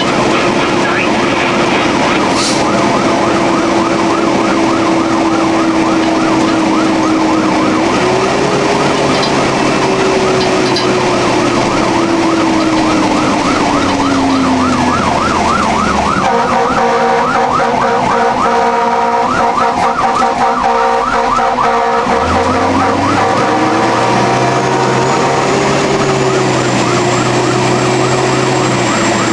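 Fire engine running emergency: an electronic siren on a fast yelp over a lower siren wail that slowly winds down and then rises again. A steady air-horn-like blast is held for about six seconds in the middle, with the truck's engine underneath.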